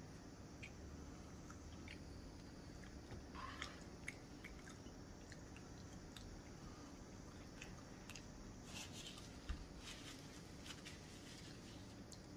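Faint chewing: a person eating, with soft scattered mouth clicks and a few slightly louder bites.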